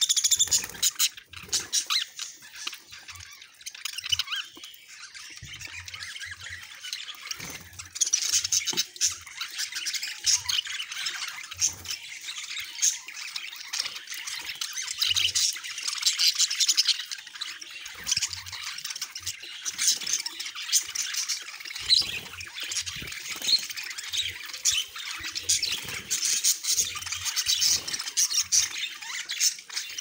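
A flock of budgerigars chattering and chirping continuously, many birds at once, with frequent short clicks of beaks pecking at seed.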